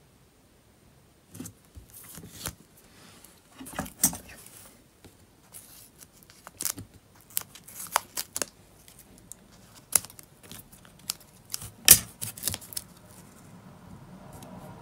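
Scissors snipping through adhesive tape while the tape is handled and pressed down: a scattered run of short, sharp snips and crackles, the loudest about four, ten and twelve seconds in.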